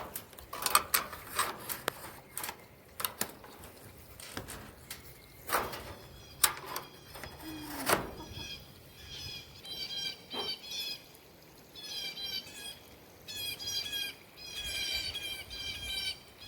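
A wild songbird singing outdoors: repeated bursts of quick high chirping phrases starting about halfway through, after scattered clicks and knocks.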